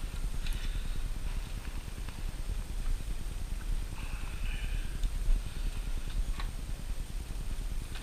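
Low rumbling handling noise with a few light clicks and scrapes as the iMac's internal parts are handled: a click about half a second in and another about six and a half seconds in.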